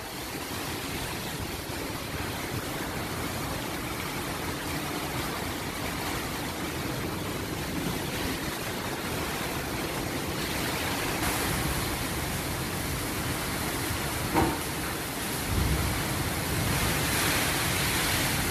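Heavy tropical-storm rain and strong wind gusts: a steady rushing hiss that builds toward the end. A single short knock comes about fourteen seconds in, followed by a low rumble of wind on the microphone.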